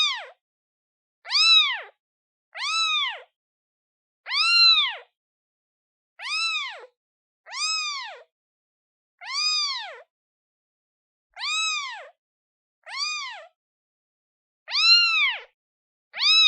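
Day-old kitten meowing for its mother: a steady run of about eleven short, high meows, each rising and then falling in pitch, one every second and a half or so with silence between.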